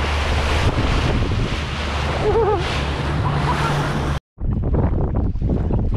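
Wind buffeting the microphone over wave and water noise on a boat, with a steady low hum underneath and a short warbling pitched call about halfway through. The sound cuts out abruptly about four seconds in and comes back as quieter, crackly rustling.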